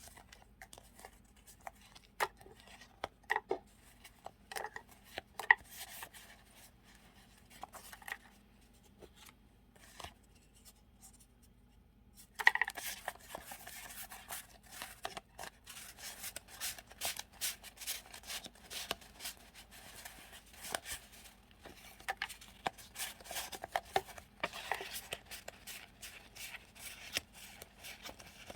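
Hands handling paper stickers and journaling papers: scattered light taps and rustles, then from about twelve seconds in a steady run of crisp paper rustling and crinkling.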